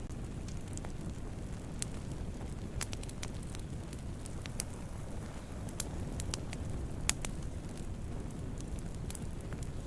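Campfire of burning wood crackling: a steady low rumble of flames with irregular sharp pops and snaps, the loudest pop about seven seconds in.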